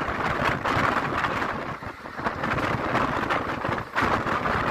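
Wind buffeting the microphone at the door of a moving passenger train, over the running noise of the coach's wheels on the rails. It rises and falls in gusts.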